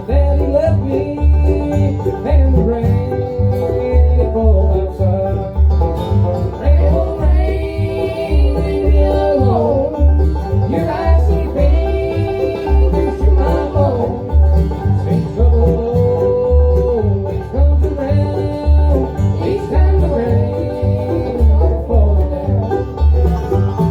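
Bluegrass band playing live: banjo, mandolin and guitar over a bass that pulses about twice a second, most likely an instrumental break between sung verses.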